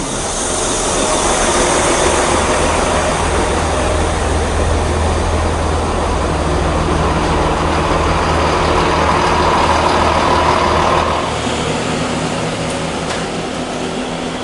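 Great Western Railway Class 165/166 Turbo diesel multiple unit moving along the platform: its underfloor diesel engines give a loud, steady low drone over the rush of the wheels on the rails. About eleven seconds in the drone and rush drop off and the sound grows quieter.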